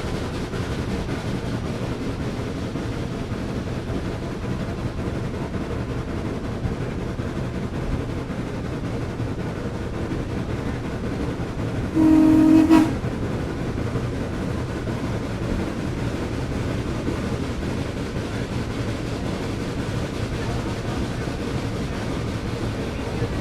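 Steady running rumble of a heritage steam excursion train, with one short whistle blast from the steam locomotive about halfway through, under a second long.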